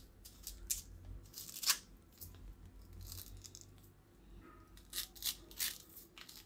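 Small knife scraping and picking the sticky pulp out of a halved bael fruit's hard shell: a faint run of short scrapes and soft clicks, with a few sharper ones near the end.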